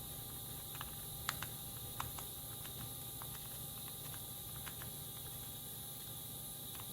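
Scattered light clicks and taps of small hard parts being handled while a cordless drill is put back together, the loudest a little over a second in and at about two seconds, over a steady background hiss and hum.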